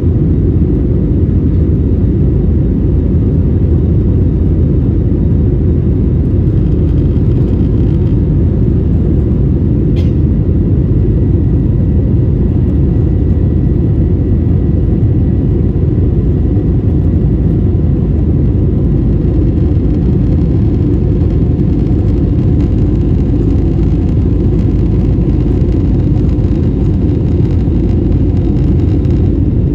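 Steady low rumble of jet engines and rushing air inside an airliner cabin during the climb, with a faint steady whine above it. One brief click about ten seconds in.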